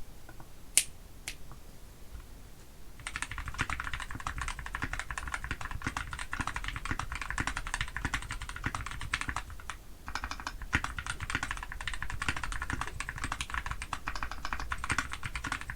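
Mechanical keyboard with Gateron CAP switches lubed with 205g0, DSS keycaps and an FR4 plate in a Kumo case, being typed on. Two single key presses at first, then fast continuous typing from about three seconds in, with a brief pause near ten seconds before the typing picks up again.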